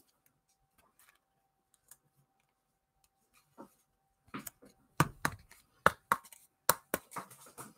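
Hard plastic card holders being handled: a quick run of sharp clicks and knocks starting about four seconds in and lasting about three seconds, after a near-quiet stretch.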